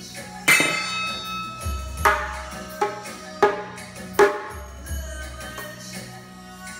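Drumsticks beating stainless-steel cooking pots, lids and idli-steamer plates as an improvised drum kit: sharp hits roughly once a second, each ringing on briefly with a metallic tone. Music with a low bass beat plays underneath.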